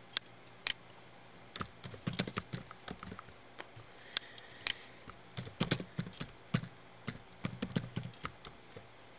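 Typing on a computer keyboard: a few short runs of keystrokes, about two seconds, five and a half seconds and seven and a half seconds in, after a couple of single clicks at the start.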